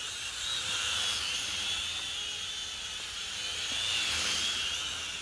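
Small toy quadcopter (Propel Maximum X11) flying, its four motors and propellers making a steady high-pitched whine. The pitch wavers slightly and the level swells and eases as the throttle changes.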